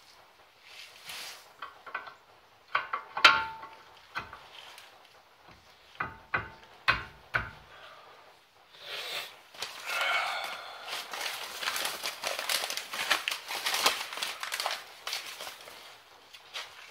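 Brake pads being handled and seated into a disc brake caliper bracket: a few sharp metal clicks and knocks, then several seconds of dense rustling handling noise.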